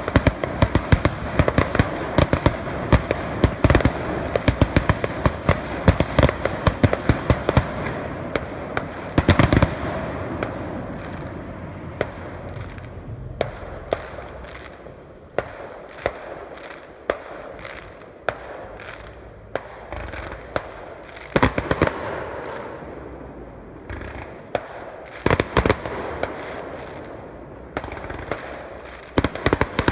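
Fireworks going off: a fast, dense string of sharp bangs for about the first ten seconds, then scattered bangs over fading crackle, with new clusters of bangs about two-thirds of the way in and again near the end.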